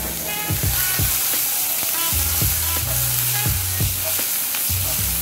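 Diced onions sizzling in a frying pan over low heat, with a steady hiss and scattered short knocks and scrapes as the pan is stirred and shaken.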